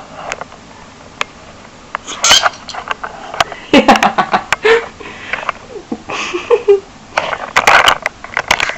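Small dog playing with a person's hand: scattered snuffles and a few short grunting noises, mixed with rustling and clicks from handling close to the microphone.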